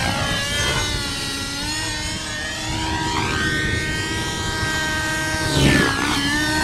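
Nitro-powered 50-size radio-controlled helicopter flying aerobatics. Its glow engine and rotors whine steadily in several tones. The pitch rises and falls as it manoeuvres and swoops as it passes close, loudest shortly before the end.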